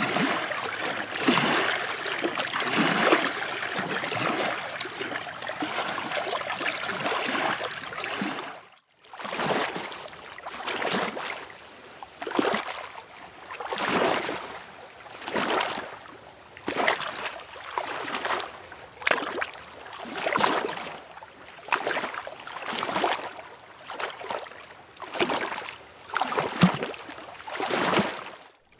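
Steady rushing water for the first nine seconds or so, then, after a brief break, small waves lapping and sloshing against a shore or hull in regular swells about one a second.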